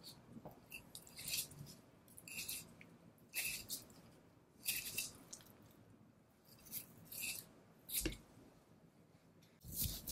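A butcher's knife slices fat and sinew off a raw Japanese Black (Kuroge) Wagyu knuckle in a series of short slicing strokes, roughly one a second. A dull thump about eight seconds in and another near the end come from the heavy piece of meat being shifted and turned over on the board.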